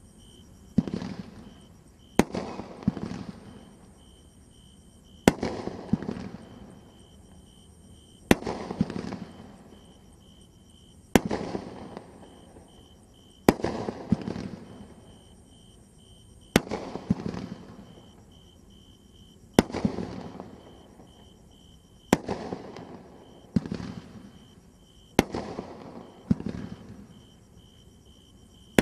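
A 16-shot, 350 g consumer fireworks cake (Brothers Pyrotechnics "Round Up") firing single shots, about a dozen of them, one every two to three seconds. Each shot is a sharp report followed by about a second of lower, ragged noise.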